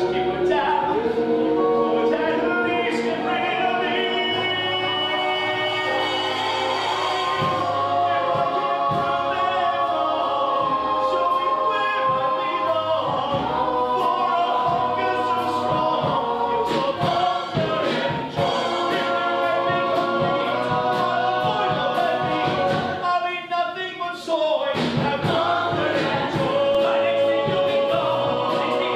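A man singing a musical-theatre song on stage, with musical accompaniment and a full, choir-like vocal sound.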